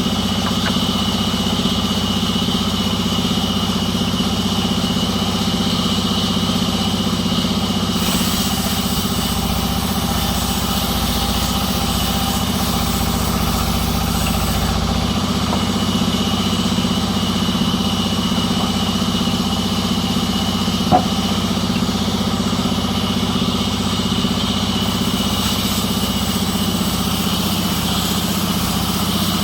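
Sawmill machinery running steadily: an even engine-like hum with a steady high whine over it, and one sharp click about two-thirds of the way through.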